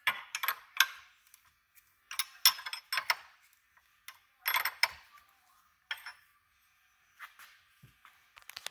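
Aluminium AN wrench clicking and scraping against an AN hose-end fitting as it is worked in short strokes to screw the fitting into the braided stainless PTFE hose. Small groups of sharp metallic clicks come every second or so.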